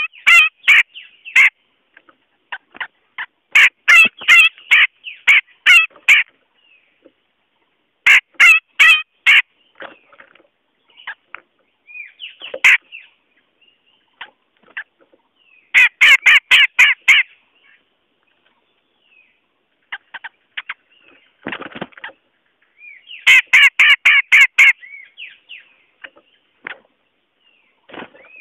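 Cucak jenggot bulbul calling: phrases of rapid, harsh chattering notes, several to the second, repeated every few seconds with short pauses between. This is a lure call recording of the kind used to draw the bird in for trapping.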